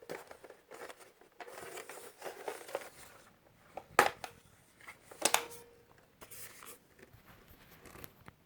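Handling noise from a plastic airsoft rifle as its spring-latched folding buttstock is worked open: scattered rustling and small knocks, with two sharp clicks about four and five seconds in.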